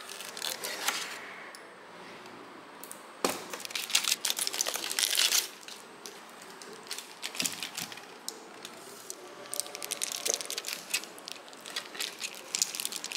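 Aluminium foil crinkling and a kitchen knife cutting through a chilled slab of oat, walnut and honey bar on the foil, heard as three spells of crackling.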